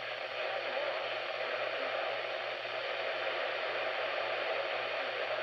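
Steady static hiss from a NOAA weather radio receiver, with a low pulsing hum underneath.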